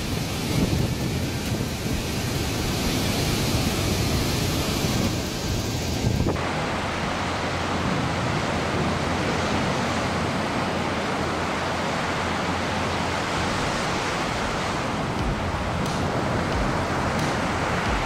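Steady rush of water from a river tidal bore surging upstream. About six seconds in it changes to the rush of a large breaking ocean wave.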